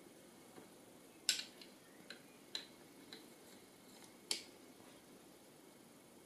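Several sharp, isolated clicks and light knocks of hard parts being handled while setting up an Edge Pro Apex knife sharpener, the loudest about a second in and about four seconds in.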